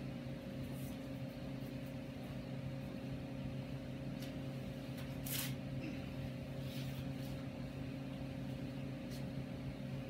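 Steady low electrical hum in a small shop room, with a faint click about five seconds in.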